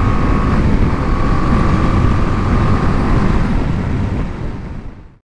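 BMW G 310 GS single-cylinder motorcycle engine and exhaust running steadily at highway cruising speed, with wind rush on the microphone; the sound fades out near the end.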